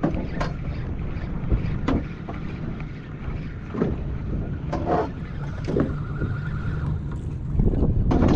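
Wind buffeting the microphone over water slapping against the hull of a small open boat, with a few short knocks scattered through.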